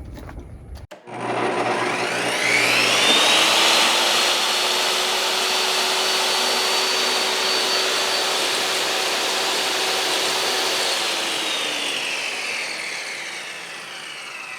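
Electric power saw cutting 1-inch hard foam board. The motor spins up with a rising whine about a second in, runs steadily, then winds down slowly near the end.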